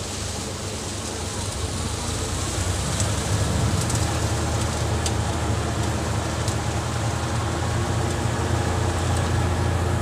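An old Fiat 480 tractor's diesel engine running steadily, powering a thresher that is threshing pearl millet, with a low engine hum under a rushing machine noise that grows a little louder over the first few seconds.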